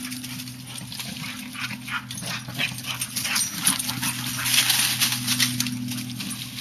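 Two dogs play-fighting and chasing each other over grass and dry leaves: dog vocal noises over a busy run of quick scuffling and rustling, loudest about four to five seconds in.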